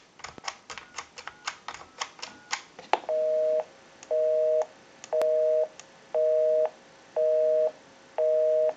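A quick run of telephone dialing clicks with short faint tones, then a busy signal heard over the Mickey Mouse telephone line: two steady low tones pulsing on and off about once a second, the sign that the dialed line is busy.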